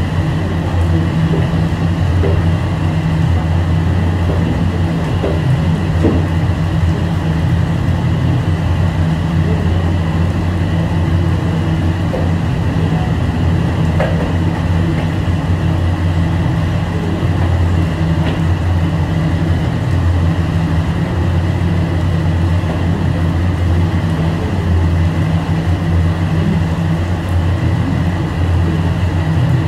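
A steady low mechanical drone with a faint, even high whine above it, unchanging.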